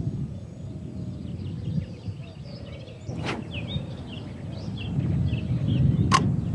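Small birds chirping on and off over a steady low rumble, with a brief swish about three seconds in as the float-fishing rod is cast, and a single sharp click near the end.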